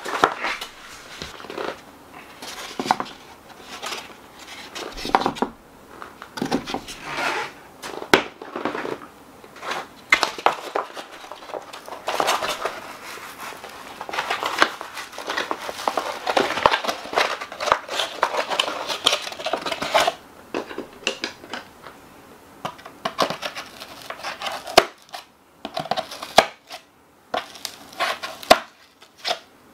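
Moulded paper-pulp egg trays being handled and stacked: irregular dry rustling and scraping of cardboard on cardboard, with small knocks, busiest in the middle.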